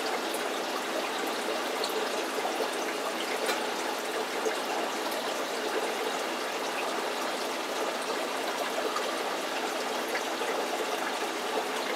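Steady trickle of running water in an aquarium setup, with a few faint ticks and drips.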